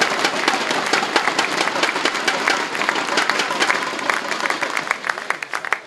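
Audience applauding, dense clapping that thins to scattered claps near the end.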